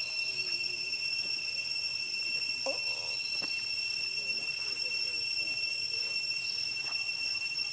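A steady, high-pitched insect drone that holds one pitch throughout, with faint distant voices and a few light clicks underneath.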